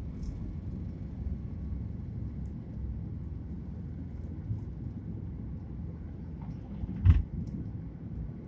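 Boeing 737 jet engines at takeoff thrust, heard inside the cabin over the wing: a steady low rumble through the end of the takeoff roll and the liftoff, with a single loud thump about seven seconds in.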